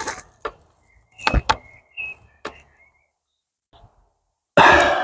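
A few sharp clicks and knocks of the air rifle being handled, with a thin whistle-like tone in the middle. After a short silence, a sudden loud rush of noise comes near the end.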